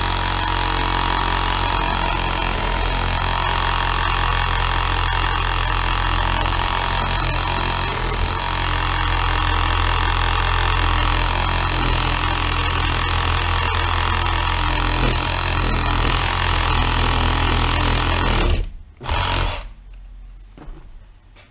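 Battery-powered Makita one-handed reciprocating saw running steadily as its blade cuts a groove into a lead egg sinker clamped in a vise. It stops about three-quarters of the way through, runs again in one short burst a second later, then falls silent.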